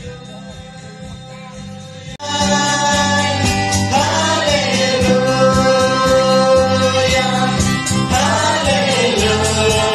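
A group of singers with handheld microphones singing a Christian song through a PA, held notes sliding between pitches over a steady low backing. Quieter music comes first, and the loud singing starts abruptly about two seconds in.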